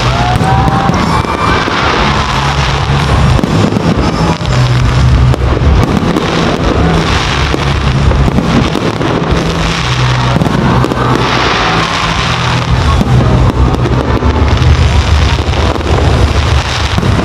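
Fireworks bursting and crackling over a loud pyromusical soundtrack with a heavy bass line.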